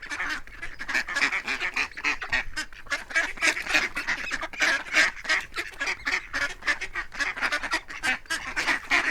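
A group of ducks quacking continuously, with many short calls overlapping in quick succession.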